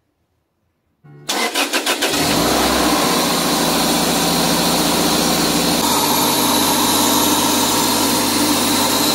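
About a second in, the starter cranks the Toyota MR2 Spyder's 1.8-litre four-cylinder (1ZZ-FE) for about a second. The engine catches and settles into a steady idle, breathing through a short ram intake velocity stack with an open cone filter in place of the stock airbox.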